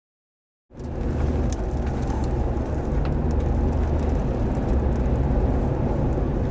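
Under a second of silence, then a steady low rumble of wind and vehicle noise with scattered ticks, as heard from a storm chaser's car near a tornado.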